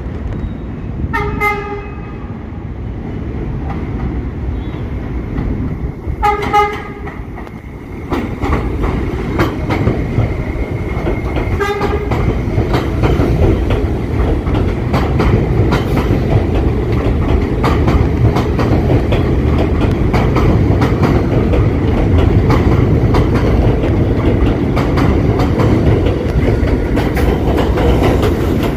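R68 subway train sounding three short horn toots as it approaches, then passing through the station without stopping. A loud steady rumble builds up from about a third of the way in, with wheels clacking over the rail joints.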